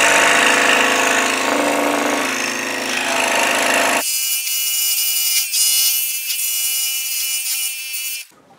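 Scroll saw running and cutting wood, a steady mechanical buzz with the rasp of the reciprocating blade. About four seconds in the sound turns thinner and higher, and it cuts off suddenly shortly before the end.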